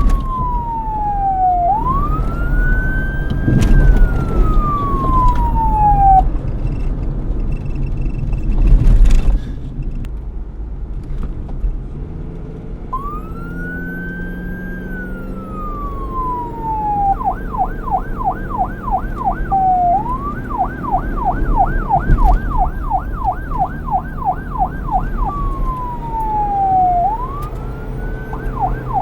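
Police car siren sounding in wail mode, a slow rise and fall, then falling silent for several seconds while traffic rumbles and a loud low surge passes. The wail returns and switches back and forth with a fast yelp of about three to four warbles a second.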